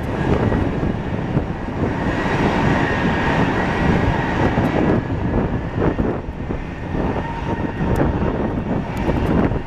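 Twin-engine widebody jet airliner climbing out just after rotation, its turbofans at takeoff power: a steady roar with a thin steady whine riding on top.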